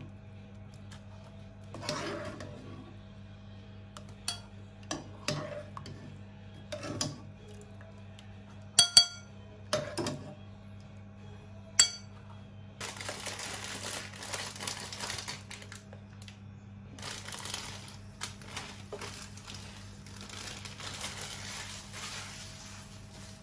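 Metal strainer ladle knocking and clinking against a cooking pot as boiled carrot slices are scooped out, with a few sharp knocks and two ringing clinks. Then come two long stretches of rustling, hissing noise over a steady low hum.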